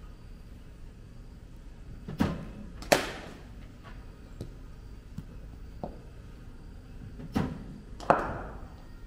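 Two deliveries in cricket nets against a bowling machine. Each is heard as a pair of sharp knocks under a second apart, the second louder with a short ringing tail as the bat meets the cricket ball. Fainter single knocks come in between.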